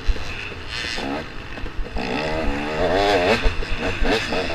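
KTM 250 XC-W two-stroke dirt bike engine under the rider's throttle, lighter for the first couple of seconds, then revving up and down repeatedly over rough trail, with occasional knocks.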